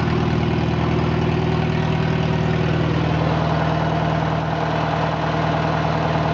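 1962 Farmall 140's four-cylinder gasoline engine idling steadily through a straight-pipe exhaust, still cold after a cold start.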